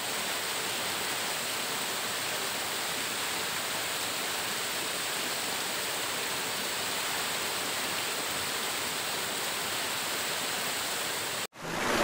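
Steady rushing of a tall, thin waterfall pouring onto rocks and into a shallow pool at its modest dry-season flow. The sound cuts off suddenly near the end.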